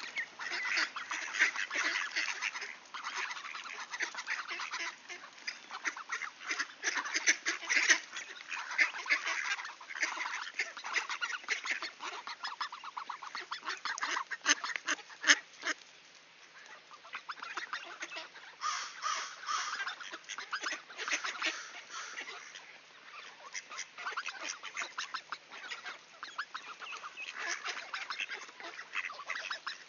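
A flock of mallards and American black ducks quacking and chattering: many rapid, overlapping calls, with a short lull about halfway through.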